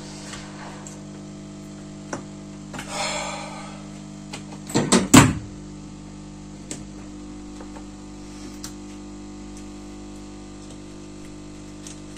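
Steady electrical hum from running bench equipment, with a brief hiss about three seconds in, a loud clatter of sharp knocks around five seconds in, and a few light clicks of tools and parts being handled.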